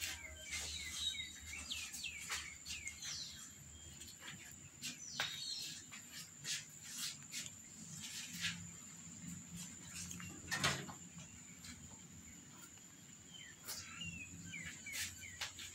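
Small birds chirping in quick short bursts, a run in the first few seconds and another near the end, with scattered light clicks in between.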